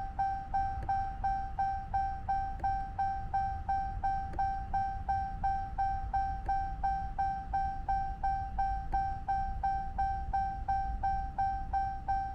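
Dodge Charger's instrument-cluster warning chime repeating steadily at one pitch, about three chimes a second, while the cluster runs its unmarry procedure.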